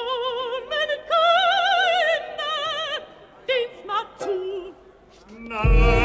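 A soprano sings a folk-style song in German with wide vibrato, in short phrases. About five and a half seconds in, the orchestra comes in loudly.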